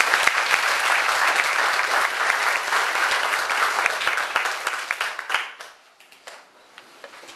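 A small audience applauding, the clapping dying away about five and a half seconds in, with a few last scattered claps after.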